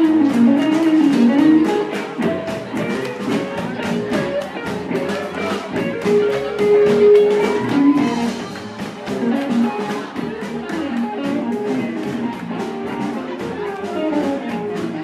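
Live blues-rock band playing an instrumental passage: an electric guitar plays a lead line over drums and bass guitar, holding one note for about a second and a half near the middle.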